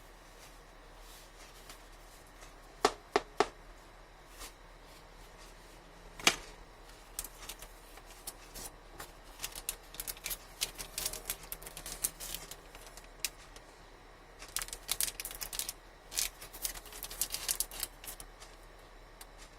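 Hands handling a phone box and its contents: three sharp clicks about three seconds in, a single loud click or tap a few seconds later, then two long spells of quick light clicking and rustling as packaging and parts are moved.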